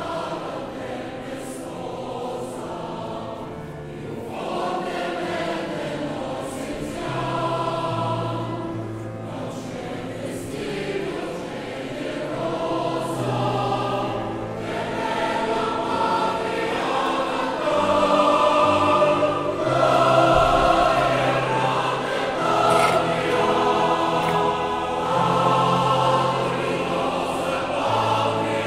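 A large combined choir of mixed adult voices and boys singing a choral piece in Italian, growing louder in the second half.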